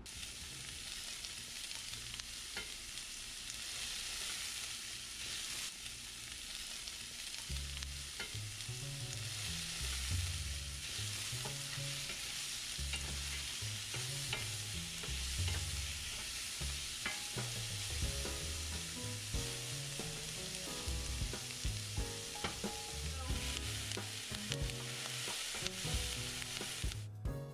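Diced onions frying in olive oil in a stainless steel skillet over medium-high heat, a steady sizzle throughout, stirred with a wooden spoon.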